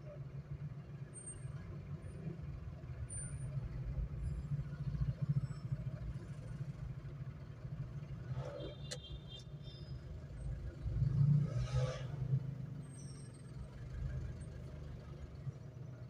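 Low steady rumble with small clicks and rustles from wiring and a hand tool being handled, including a sharp click about halfway through and a louder rustle a little later.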